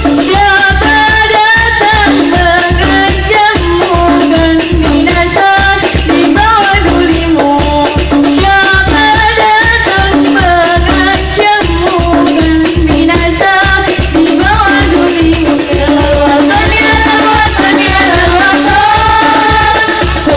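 Hadroh ensemble performing: frame drums (rebana) and a deep bass drum play a fast, steady beat under a sung melody, recorded very loud.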